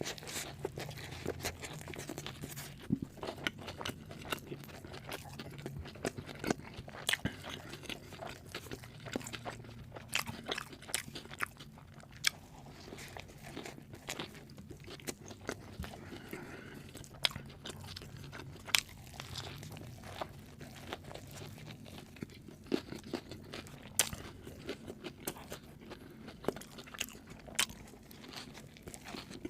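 Crunchy food being bitten and chewed: many sharp, irregular crunches with a faint low hum underneath.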